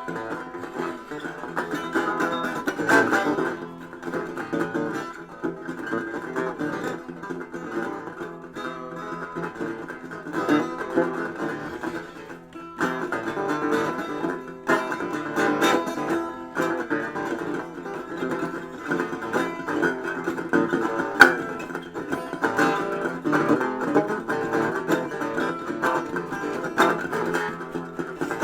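Instrumental music: a plucked string instrument picked continuously, with no singing.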